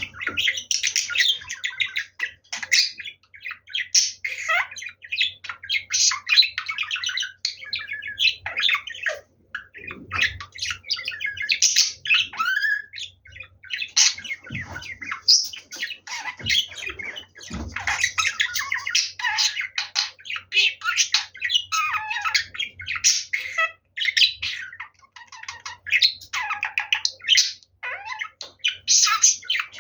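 Pet budgerigar chattering almost without pause: a rapid, high warble of chirps and squawks mixed with mimicked speech-like babble.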